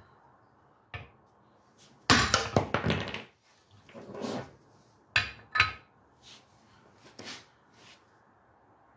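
Hammer striking a steel socket to drive a Subaru wheel hub into its new bearing without a press. A quick run of ringing metal blows about two seconds in, then two sharp strikes and a few lighter metal knocks.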